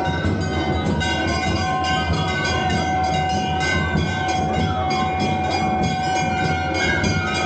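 Festival procession music: rapid, dense drumming under a shrill note held steady.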